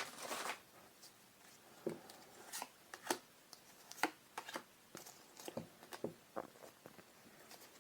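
Faint, irregular taps and rustles of trading cards and a booster-pack wrapper being handled, with one sharper tap about three seconds in.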